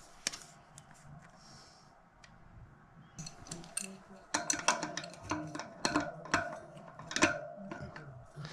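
Small metal bike parts and tools being handled, giving sharp clicks and clinks: a few scattered ones at first, then a quick run of them from about three seconds in.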